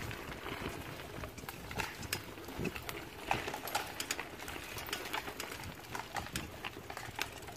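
Bicycle riding along a dirt forest trail: a low tyre rumble over the ground with irregular clicks and rattles as the bike bumps along.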